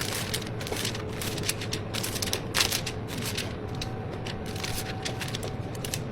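Rapid, irregular plastic clicks and clatter of drink tubs being sealed, one louder knock about two and a half seconds in, over a steady low hum of shop equipment.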